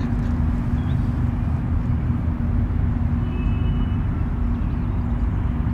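Steady outdoor background rumble with a constant low hum underneath, and no distinct events.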